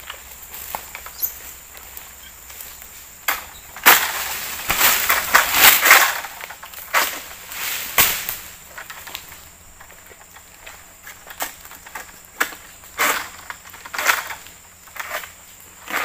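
Egrek, a sickle on a long pole, cutting oil palm fronds: a series of sharp cracks as the blade pulls through the frond stalks, with a rustling crash of fronds falling through the leaves between about four and six seconds in.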